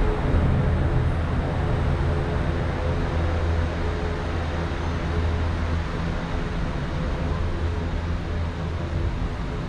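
Steady low rumble of a vehicle's engine, running evenly without a break.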